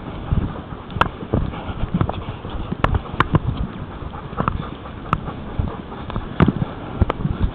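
Footsteps of a walker going uphill on a grassy, muddy track, with irregular sharp clicks and knocks about every half second to a second.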